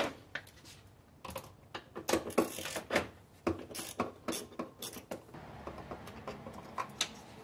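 Ratchet wrench with a 10 mm socket clicking in irregular runs as it backs out a screw, from about a second in until about five seconds in.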